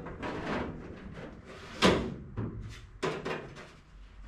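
Irregular knocks and clatter of parts being handled and set down, about five separate events, the loudest a sharp knock about two seconds in.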